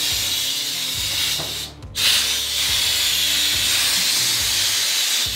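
Air-operated motorcycle lift being lowered: a steady loud hiss of air let out of the lift. It stops briefly just before two seconds in, then starts again and cuts off abruptly.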